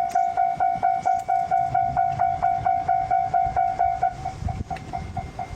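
Japanese railway level-crossing warning bell ringing in quick even dings, about four or five a second, dropping in level about four seconds in. A low rumble runs underneath.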